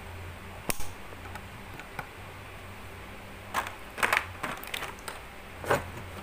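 Handling noise from a vlogging kit's plastic stand and phone clamp being picked up and set down: sharp clicks and knocks, a few at first and then a quicker run near the end, over a low steady hum.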